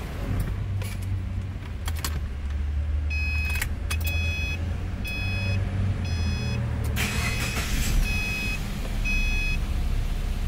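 A car's warning chime sounds in short high beeps about once a second over a steady low hum, with a few sharp clicks in the first four seconds. About seven seconds in, the 2013 Subaru Forester's flat-four engine cranks and starts, and the chime carries on as the engine idles.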